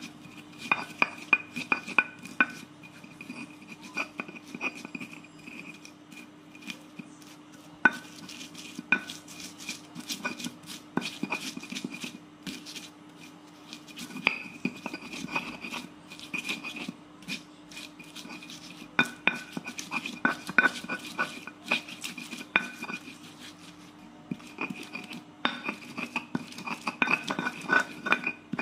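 Stone pestle grinding and pounding a spice paste of chillies, garlic and shallots in a stone mortar (ulekan and cobek): irregular knocks and scrapes of stone on stone in clusters, over a faint steady hum.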